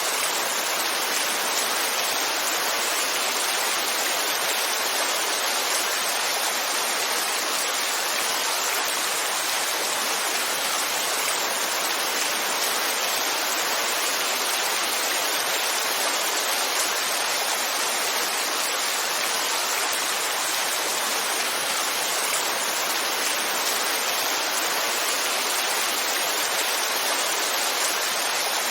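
Heavy rain falling, a steady dense hiss with no single drops or thunder standing out.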